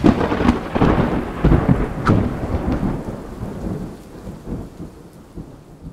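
Thunder sound effect: a crackling, rolling rumble with a sharp crack about two seconds in, fading away over the following seconds.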